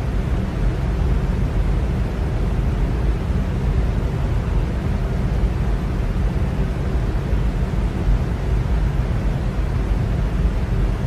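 Electric fan running steadily: an even rush of moving air, heaviest in the low end, with a faint steady hum and no change in speed.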